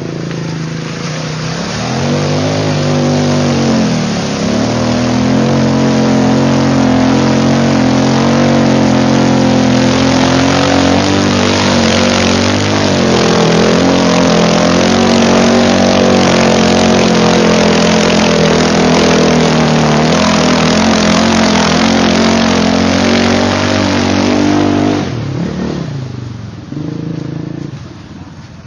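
Quad bike (ATV) engine revving hard under load as it ploughs through a deep, muddy water crossing, the pitch rising and falling with the throttle, with water and mud splashing. The engine swells about two seconds in and drops away near the end.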